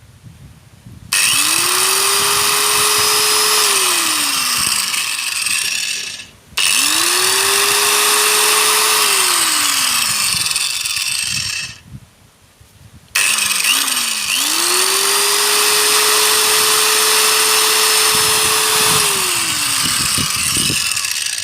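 SIM-100B electric angle grinder switched on three times: each time the motor's whine rises quickly to a steady pitch, holds for a few seconds, then falls as it spins down after switch-off. The third run is the longest.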